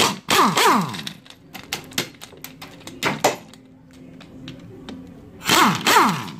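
Hand-held power tool with a 12 mm socket on an extension spinning out the timing-cover bolts of a Mazda 13B rotary engine. There are two short runs, about half a second in and again near the end, each falling in pitch as the motor winds down, with sharp metallic clicks between them.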